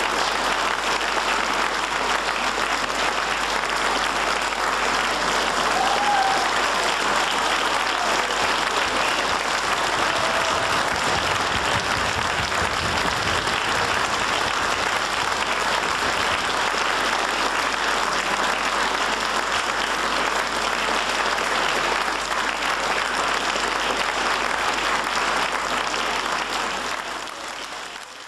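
Audience applauding steadily in a concert hall, fading out just before the end.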